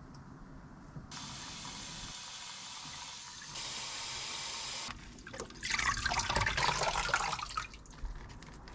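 Water running from a kitchen tap into a sink: a steady hiss that starts about a second in, gets louder partway and then stops. A louder, uneven splashing follows for about two seconds as food is rinsed under the water.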